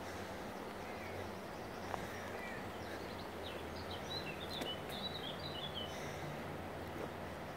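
Park ambience with a steady background hum. A small bird chirps a quick run of high notes in the middle, and a few faint clicks sound.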